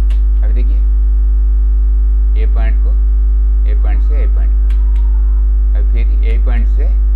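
Loud, steady electrical mains hum on the recording: a low buzz with many overtones that does not change, with a few brief bits of a low voice over it.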